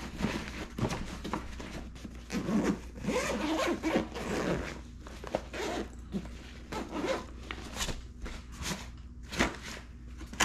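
Zipper being pulled open around a soft-sided fabric ice-fishing bag, in long rasping runs with short clicks of the pull and teeth and rustling of the bag's fabric.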